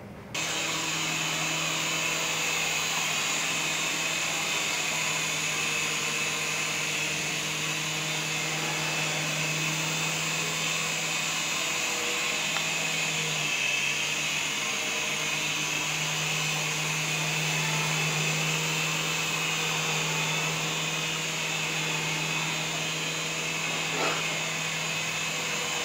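Coaxial RC toy helicopter's small electric motors and twin rotors starting up suddenly, then running steadily in flight: a high-pitched whine over a low hum.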